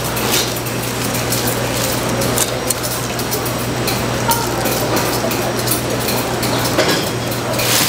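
Busy market food-stall ambience: a steady hum under a dense wash of noise, with scattered small clicks and clinks.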